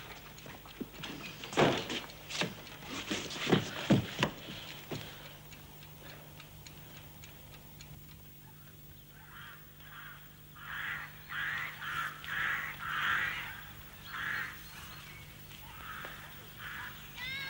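A few sharp knocks and thuds in the first seconds, then from about nine seconds in a run of bird calls, with geese honking near the end.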